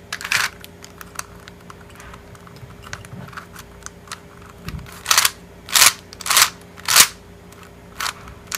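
Clear plastic Crystal Ghost Cube (a shape-shifting 3x3 twisty puzzle) being turned by hand: light ticks of the layers turning, with a run of louder clacks about a second apart between five and seven seconds in, and another near the end. The turning is very smooth, with no catching.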